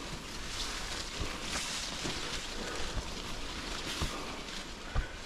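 Footsteps on a dirt forest trail, a step about once a second, over a steady hiss of wind on the microphone.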